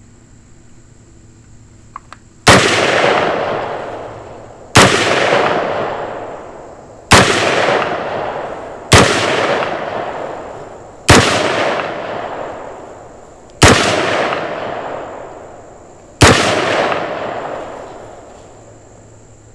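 An AR-15 pistol firing seven slow, deliberate single shots, about two to three seconds apart. Each report rings out in a long echo before the next. Two faint clicks come just before the first shot.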